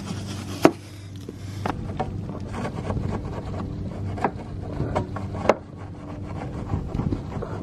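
Stiff-bristled brush scrubbing a wet, soapy snowmobile chassis and tunnel, with a scratchy rubbing throughout and a few sharp knocks as the brush hits the frame, the loudest about a second in. A steady low hum runs underneath.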